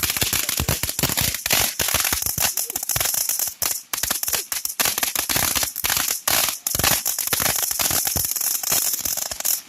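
Fireworks going off in a dense, rapid string of sharp cracks and pops, with a few brief gaps, that cuts off at the end.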